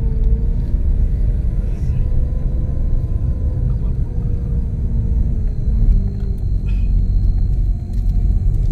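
Car engine and road rumble heard from inside the cabin while driving: a steady low rumble with an engine hum that drifts slightly in pitch.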